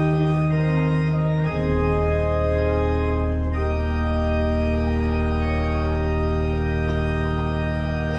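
Church organ playing the postlude in held chords over a deep sustained bass, moving to a new chord about a second and a half in and again a little before the middle.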